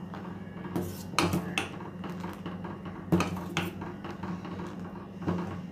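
Steel ladle knocking and scraping against a stainless steel pot as hot milk is scooped up and poured back in to mix it, with about half a dozen sharp metallic clinks spread through.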